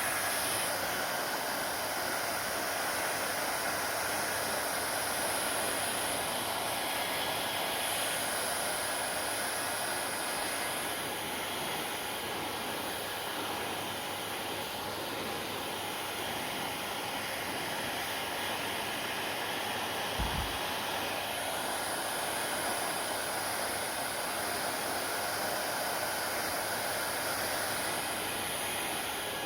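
Hair dryer running steadily, an even rush of motor and airflow whose high hiss swells and fades a few times. One brief low bump about twenty seconds in.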